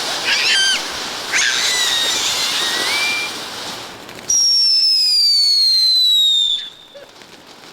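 Consumer ground firework hissing as it sprays, with a few short warbling whistles, then a loud whistle gliding slowly down in pitch for about two seconds that cuts off abruptly.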